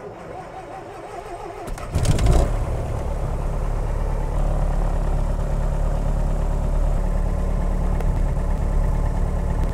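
Piper Cherokee light aircraft's piston engine being started: cranking on the starter, catching about two seconds in with a sudden rise in level, then running steadily with the propeller turning.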